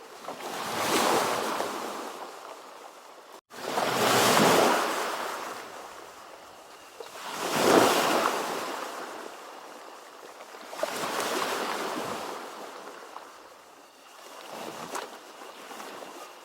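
Ocean waves breaking on a shore: five rushing surges of surf, one every three to four seconds, each swelling and then washing away. The sound cuts out for an instant about three and a half seconds in.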